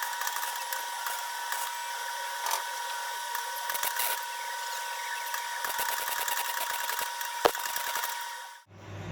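Welding arc crackling steadily on steel car bodywork, with a steady high hum under the crackle; it cuts off abruptly near the end.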